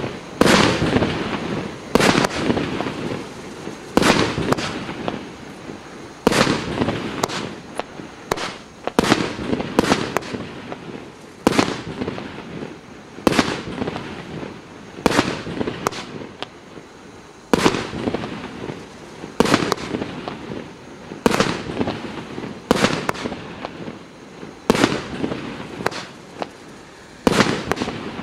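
A 25-shot, 1.2-inch consumer fireworks battery (FP B358 'Big Ben') firing shot after shot. A sharp bang comes about every one to two seconds, and each one trails off before the next.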